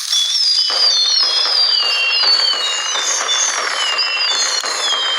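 Fireworks going off in a dense, continuous crackle, with many whistling tones gliding up and down over it. It starts suddenly and keeps going without a pause.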